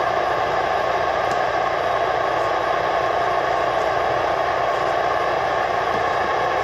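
Johnson CB radio receiver putting out a steady hiss of static, with no station coming through on the channel.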